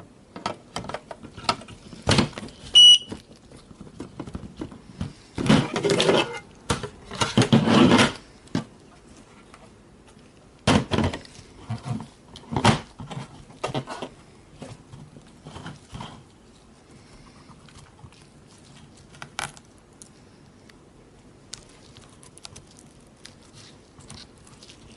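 Handling noise: irregular rustling, scraping and clicks of packaging and plastic parts being handled, with two longer rustling bursts a few seconds in. There is a single very short high beep about three seconds in.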